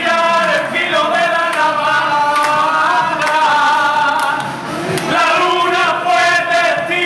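A small group of men singing together without instruments, holding long notes.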